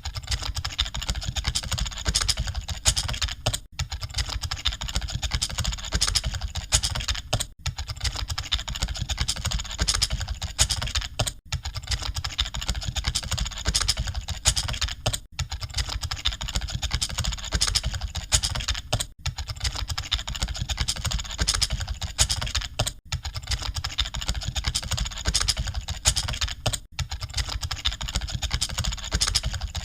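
Computer keyboards being typed on continuously and fast, a dense clatter of many keys as in an exam hall full of typists. The clatter drops out briefly about every four seconds.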